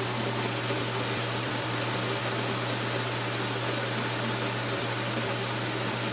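A steady mechanical whir and hiss of a motor or fan running, with a constant low hum under it.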